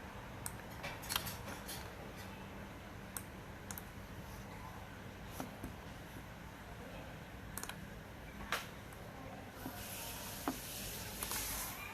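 Scattered light clicks and taps, a dozen or so at uneven spacing, over a steady low hum, with a short soft rustle near the end.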